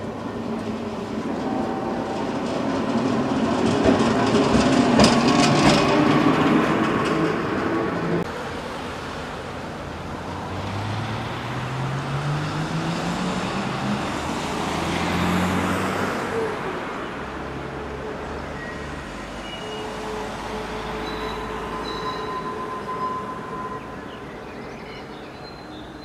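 Historic tramcar running on metre-gauge track, its wheels clicking over rail joints and points as it approaches, loudest about five seconds in. After an abrupt drop about eight seconds in, the sound is quieter, with a low whine rising in pitch.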